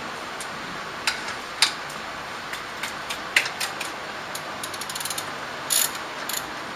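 Ratchet wrench clicking in short, irregular runs while a bolt on a front brake caliper is loosened.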